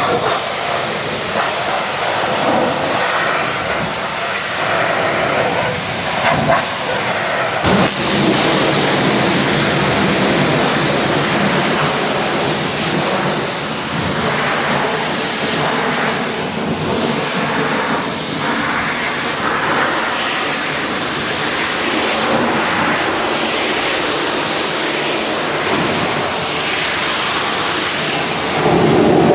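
Pressure washer spraying a truck: a steady, loud hiss of the water jet, growing brighter and harsher about eight seconds in.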